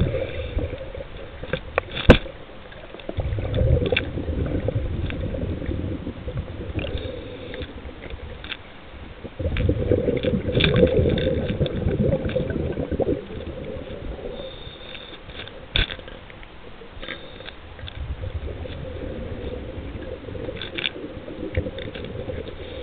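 Scuba diver breathing on a regulator underwater: bubbling, rumbling exhalations a few seconds apart, with a few sharp clicks, the loudest about two seconds in.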